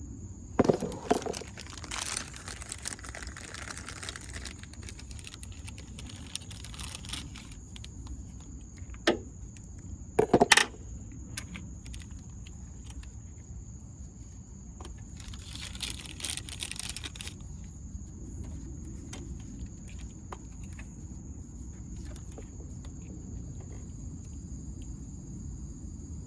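Hand tools and battery-terminal hardware clinking and scraping as a corroded battery terminal is worked loose and removed, with a few sharp metal clanks about ten seconds in and short spells of scraping.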